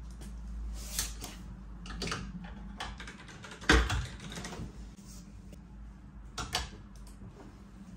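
Plastic clothes hangers clicking and clacking against a wardrobe rail and each other as garments are hung. The clicks and knocks come scattered, and the loudest knock falls a little before halfway.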